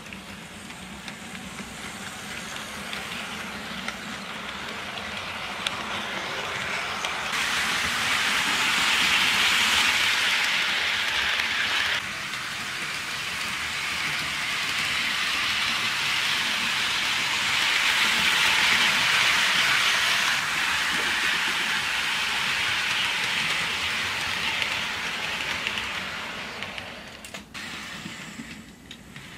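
Hornby Terrier OO gauge model locomotive running along sectional track with its wagons: a steady whirring, rattling run of motor and wheels on rail that grows louder through the middle and dies down near the end, where a few sharp clicks are heard.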